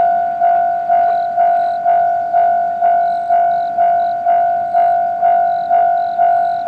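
Japanese level crossing warning bell ringing in a steady repeating clang, about two strikes a second, each tone fading before the next: the crossing alarm is active for an approaching train.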